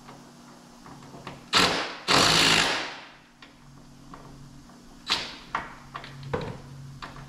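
Hand-tool work on the door hinges of a Dodge Ram 5500 crew cab while the door is being aligned: a sharp metal clank about a second and a half in, then a loud rasping burst lasting under a second, and a few lighter knocks and clicks near the end.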